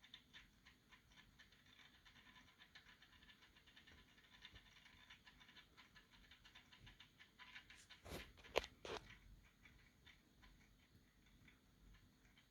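Faint scratching and rustling of Funko Pop boxes and packaging being handled, with three sharp knocks close together about two-thirds of the way through.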